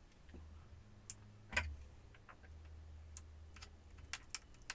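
Scattered light clicks and taps of a laptop's case and parts being handled during disassembly, with one louder knock about one and a half seconds in, over a steady low hum.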